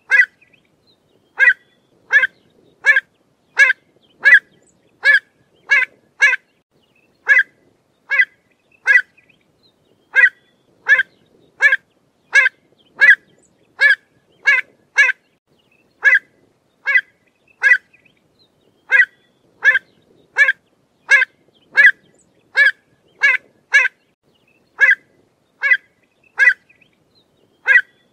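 Pied avocet calling: a long series of short, clear calls, about one to two a second, some in quick pairs.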